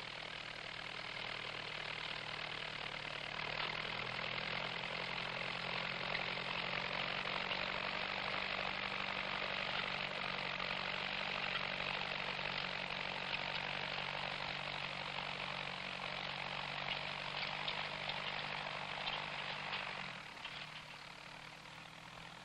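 Farm tractor engine running steadily as it pulls a field implement, with a steady hiss over it. It grows a little louder a few seconds in and fades away near the end.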